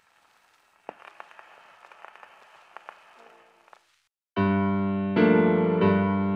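A faint hiss with scattered clicks, then after a moment of silence a piano starts playing sustained chords about four seconds in, opening the song's introduction.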